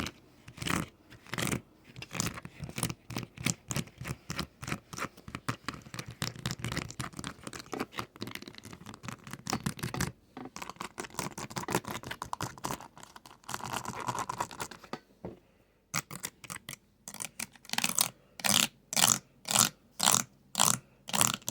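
Fast, close-up ASMR tapping and clicking of chopsticks and fingernails, in dense rapid runs. After a short lull near the middle it turns into louder, evenly spaced taps about two a second.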